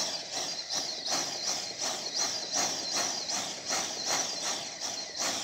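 Jeweller's soldering torch blowing its flame onto a brass ring, heating the ring red before the solder is flowed. A steady hiss with a rhythmic pulse about three times a second.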